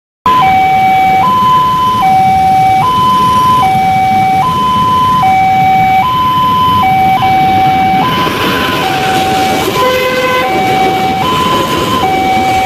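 Railway level-crossing warning alarm sounding a loud two-tone signal, alternating between a higher and a lower tone each held just under a second. From about 8 s in, the rushing noise of an approaching and passing passenger train builds up under it. There is a short horn blast about 10 s in.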